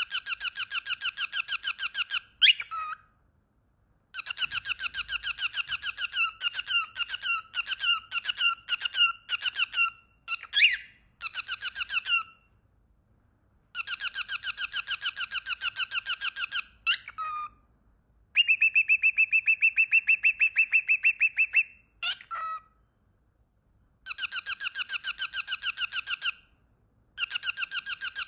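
A pet bird singing in rapid trills: phrases of a few seconds, each made of evenly repeated clipped notes at several a second, broken by short pauses, with a quick sweeping note at the end of some phrases.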